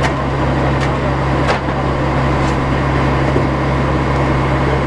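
Aerial ladder fire truck's diesel engine running steadily at high idle, a loud, even low drone, with a few faint ticks.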